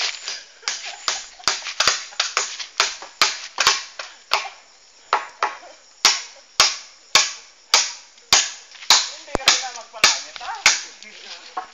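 A steady series of sharp, loud knocks, about two a second, with a short pause midway, stopping about a second before the end.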